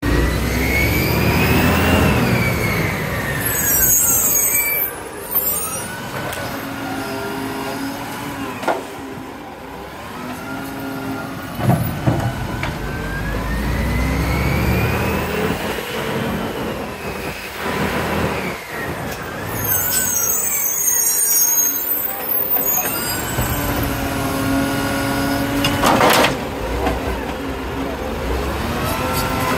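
Isuzu side-loader garbage truck at work: its diesel engine revs up and down while the hydraulic arm cycles. There are two sharp air-brake hisses and a few knocks from the arm and bin.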